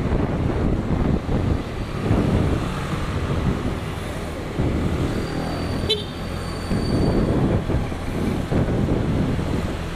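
Motorcycle engine running steadily while riding through city traffic, with road and traffic noise around it; a short click about six seconds in.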